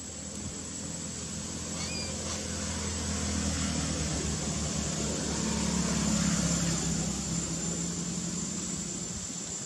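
A motor vehicle's engine hum swelling to its loudest about six seconds in, then easing off, over a constant high-pitched whine. A single short high chirp sounds about two seconds in.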